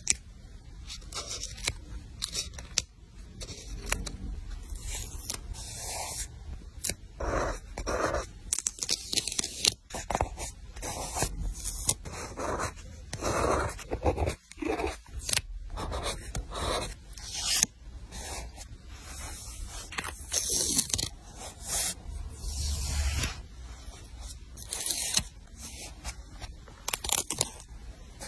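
Paper craft handling on a planner page: paper and stickers scraped, rubbed and rustled in a string of irregular strokes, some short and some drawn out over half a second.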